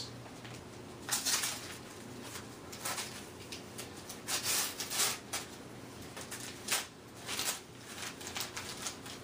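Gift wrapping paper being torn and crumpled by hand, in irregular crinkling rustles.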